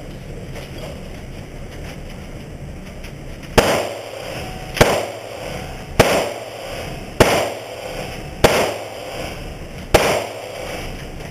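Six single gunshots fired at a steady pace, about 1.2 seconds apart, beginning a few seconds in. Each shot is followed by a short ringing tail.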